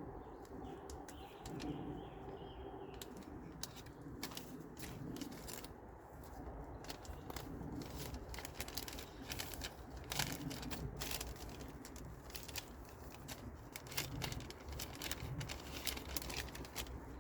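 Plastic MRE packaging crinkling and rustling as it is handled, with an irregular string of sharp crackles and clicks, thickest around the middle.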